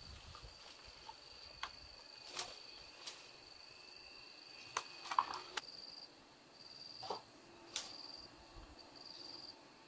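Insects chirring steadily at a high pitch, the call breaking into short pulses in the second half. Over it come scattered rustles and knocks as a woven bamboo panel is carried through undergrowth, the loudest about five seconds in.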